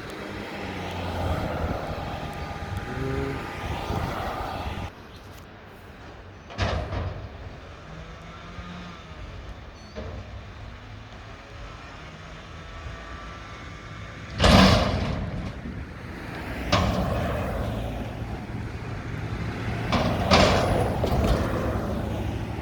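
Mack front-loader garbage truck with a McNeilus body, its diesel engine running and getting louder toward the end. There is a loud sudden burst about two-thirds of the way through.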